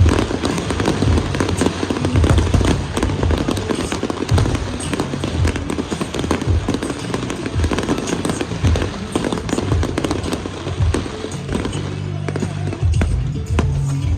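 Fireworks bursting in quick, dense succession, with crackling reports, while music with a pulsing beat plays along with the show.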